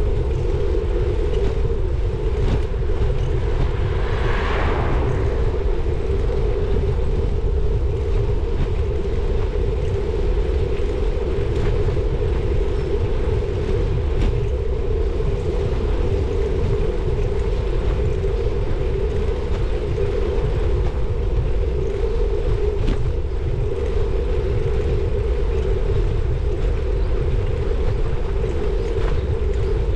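Wind buffeting the microphone of a camera on a moving bicycle, over the rumble of tyres rolling on tarmac, with a steady drone throughout. A brief hiss swells about four seconds in.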